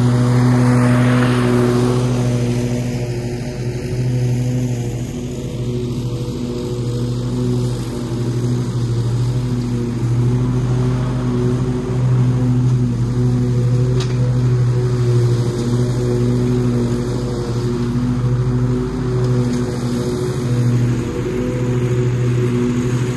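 Cub Cadet zero-turn mower running steadily while mowing, a constant engine hum. It is loudest and hissiest as it passes close in the first couple of seconds.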